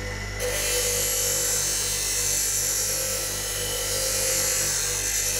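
Bench grinder running with a steady motor hum while the steel foot of a fishing-rod guide is held against its wheel to taper it; a loud, even grinding hiss starts about half a second in and holds steady.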